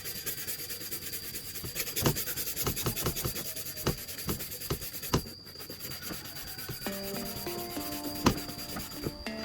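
Sanding of plastic by hand: rapid, dense rubbing strokes with a few sharp clicks, over a steady high whine. A simple background tune comes in about seven seconds in.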